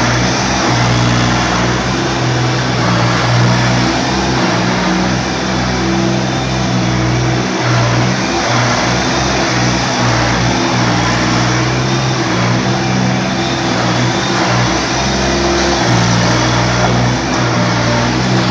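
Yanmar F20 compact tractor's diesel engine running steadily as the tractor is driven around, its pitch rising and falling slightly every few seconds.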